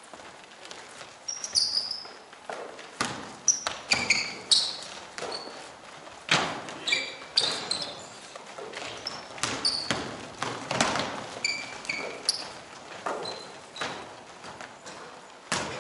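Basketballs bouncing on an indoor court floor in an irregular run of thuds, with short high squeaks from sneakers scattered between them and a hall echo around them.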